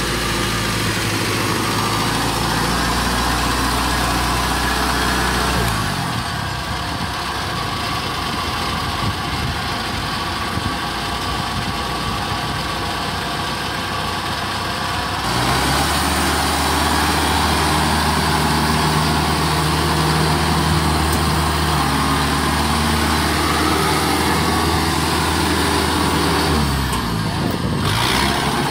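Yanmar 850 tracked rice combine harvester's engine running steadily. Its low hum thins into a rougher noise for several seconds in the middle, then returns strongly about halfway through.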